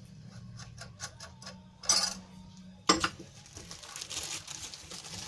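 Small objects being handled on a workbench: a run of light ticks and clicks, a short rustle about two seconds in, and a sharp knock just before the three-second mark, followed by fainter ticking.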